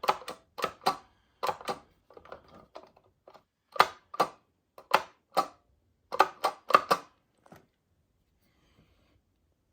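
Sharp clicks and knocks, often in quick pairs at about two a second, from the fridge dispenser's parts being handled and worked; they stop about three quarters of the way through.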